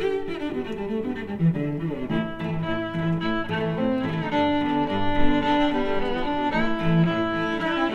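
String music: a low line of bowed, cello-like notes under higher fiddle-like notes, the melody moving note to note every fraction of a second.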